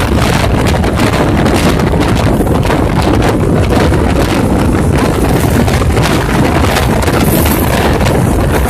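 Wind buffeting the microphone at an open train doorway over the steady running noise of an express train at speed, with a Mumbai suburban EMU local passing close on the adjacent track.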